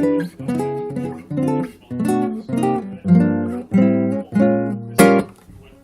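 Acoustic guitar strummed in chords, about two strums a second. About five seconds in comes one sharp, bright strum that is left to ring and fade.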